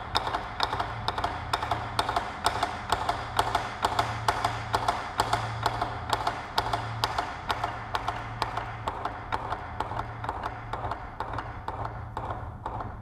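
Ensemble of barrel-shaped taiko drums struck with wooden bachi in a fast, even rhythm of about four sharp strikes a second, getting a little quieter near the end.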